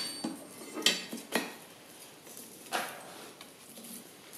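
A handful of light metallic clinks and taps, irregularly spaced, each ringing briefly: steel tongs and a handled top tool knocking against the anvil and hot stock as the work is repositioned.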